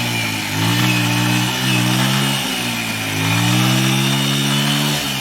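Small engine revving up and down repeatedly, its pitch dropping and climbing again several times.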